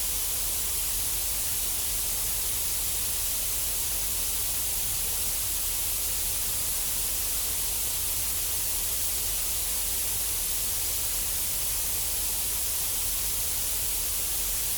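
Steady, unchanging static hiss, brightest in the treble, over a low hum.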